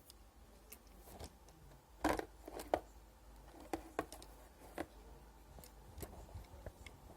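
Irregular clicks and light knocks from a small object being handled, with the loudest cluster about two seconds in and scattered single clicks after.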